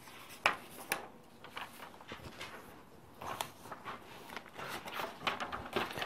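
Faint paper handling: a drawn-on sheet moved aside to uncover a blank sheet, with two short sharp rustles about half a second and a second in, then scattered soft rustles.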